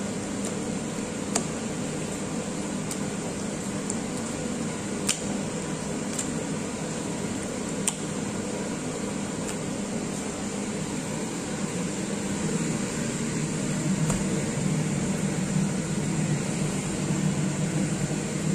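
Steady mechanical hum of a running fan or appliance motor, with a handful of sharp clicks scattered through it.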